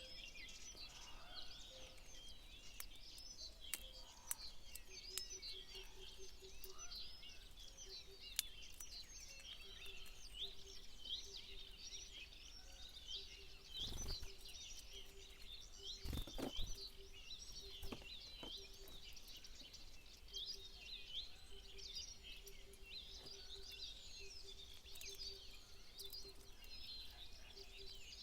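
Many small birds chirping and twittering at once, a dense continuous chorus of quick high calls. A faint low tone pulses on and off beneath it from about five seconds in, and a couple of soft thumps come midway.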